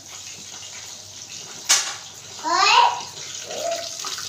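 Chicken pieces deep-frying in hot oil, a steady sizzle. A sharp click comes about one and a half seconds in, and a brief high-pitched voice rises over the sizzle about halfway through.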